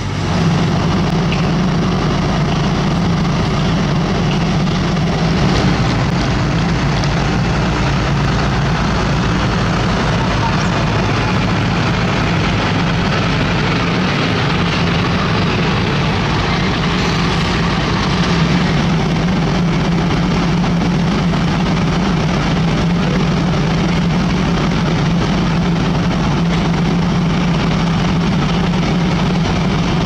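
Diesel engines of asphalt-paving machinery running steadily: a deep, even engine drone with no break.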